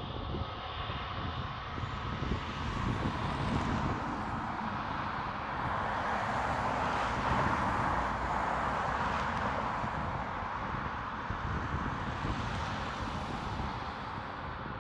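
Jet airliner engines passing: a broad rushing roar that swells to its loudest about halfway through and then slowly fades, over a steady low rumble.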